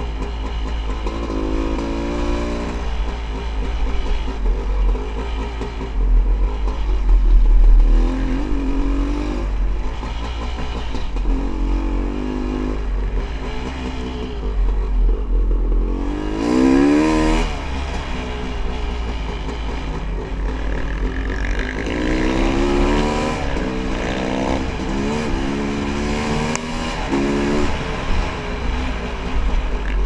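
Honda CR500 two-stroke dirt bike engine being ridden, its note climbing and dropping again and again as the throttle is opened and the gears change, with the sharpest rev about halfway through. A steady deep rumble of wind buffets the helmet microphone underneath.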